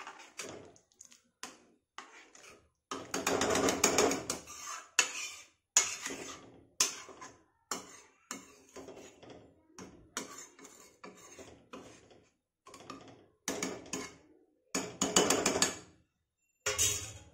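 Slotted steel spoon scraping and stirring thick lentil dal in a steel kadhai, in irregular strokes with short pauses between them. The longest, loudest run of scraping comes about three seconds in, and another comes near the end.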